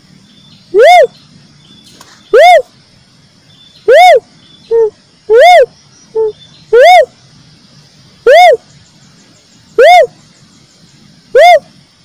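Cuckoo-dove (uncal, tekukur merah) calling: a loud whistled coo that rises and falls in pitch, repeated eight times about every one and a half seconds, with two shorter, lower notes slipped in between.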